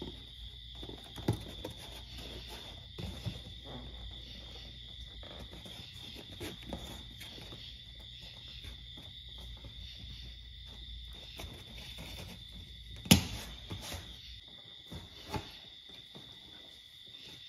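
Cardboard template and painter's tape being handled and pressed against a car's plastic front bumper: scattered faint rustles and taps, with one sharp knock about 13 seconds in. Under it runs a faint steady high tone, and a low hum stops near the end.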